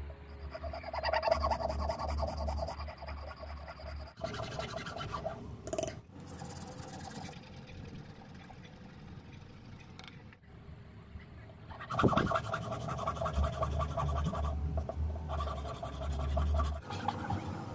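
A serrated blade is scraped rapidly back and forth along the skin of a green bamboo stalk, rasping off the outer layer as powder. There is a quieter, softer rubbing spell in the middle, and the scraping resumes louder about twelve seconds in.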